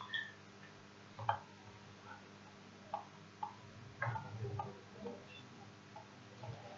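Scattered light clicks and taps from laptop keyboards and mice, a few of them sharper, over a steady low hum.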